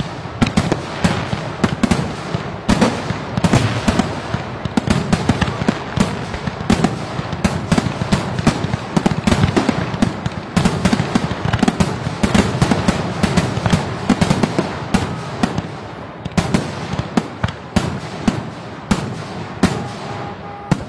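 Fireworks going off: a dense string of sharp bangs and crackles in quick succession, with no break.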